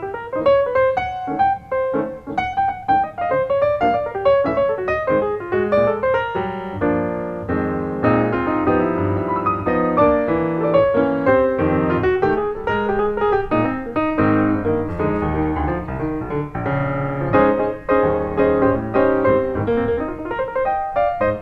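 Solo piano music, a continuous run of notes.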